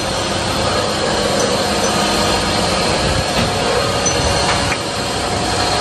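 Steady, loud rushing noise of a workshop, with a couple of faint clicks in the middle.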